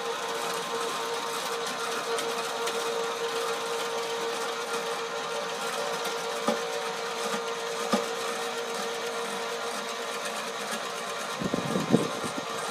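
110-volt electric motor of a portable HVAC/shingle lift running steadily with a constant whine as it hoists an HVAC unit up. A few light knocks near the end.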